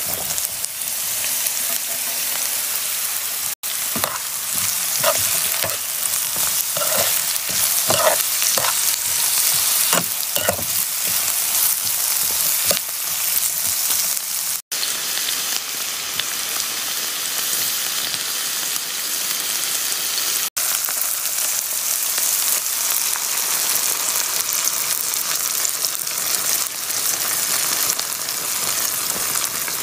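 Chopped onions, spring onions and bell peppers sizzling in oil in a frying pan, with a spoon stirring and scraping the pan in a run of short knocks during the first half. The sizzle breaks off for an instant three times.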